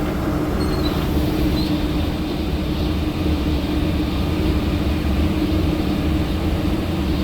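Ashok Leyland BS6 bus engine running with road noise, a steady low drone with an even hum that holds one pitch.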